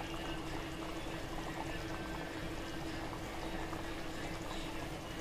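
Black chickpea curry boiling in an open aluminium kadhai, a steady bubbling with many small pops, over a steady low hum.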